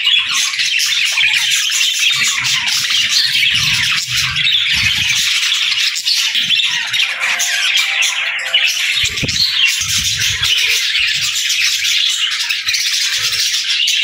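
A flock of budgerigars chattering steadily, a dense mix of warbling, chirps and squawks from many birds at once, with a few low bumps now and then.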